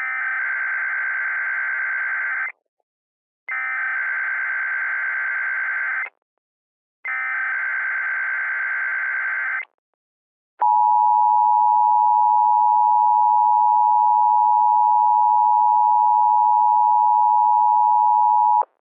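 Emergency Alert System SAME header: three identical stretches of screechy digital data, each about two and a half seconds long and about a second apart. Then comes the EAS two-tone attention signal, a steady jarring tone held for about eight seconds and cut off sharply. Together they announce that an emergency alert message follows.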